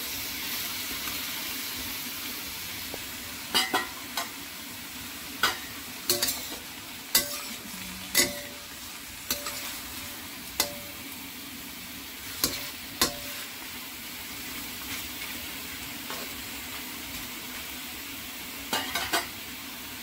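Pork pieces sizzling in a wok, with a steady hiss. A metal spatula scrapes and clinks against the wok as the meat is stirred, in a run of sharp strokes from about three to thirteen seconds in and a few more near the end.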